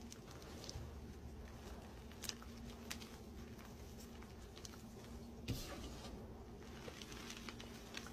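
Hands crushing and squeezing crumbly dyed blocks in loose powder, giving scattered soft crunches and crackles. The sharpest crunch comes about five and a half seconds in.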